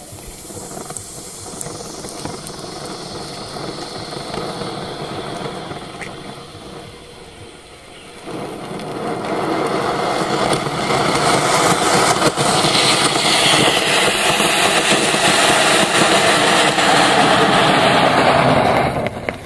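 Anar flower-pot firework fountains spraying sparks up against a steel plate: a steady rushing noise that grows much louder about eight seconds in and cuts off sharply near the end as the fountains burn out.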